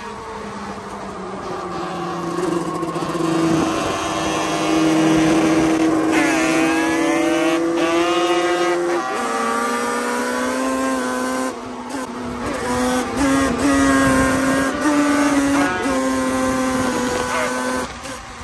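Yamaha Banshee quad's two-stroke twin engine, big-bored to 421 cc, running hard on the road. Its pitch rises about six seconds in and drops sharply a few seconds later, then holds steady.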